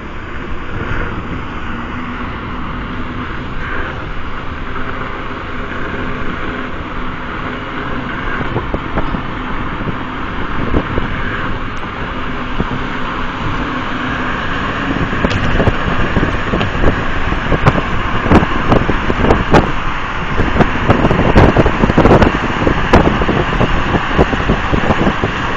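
Road noise inside a moving car: a steady rumble of tyres and engine. From about halfway through come many irregular thumps and buffets, and the sound grows louder.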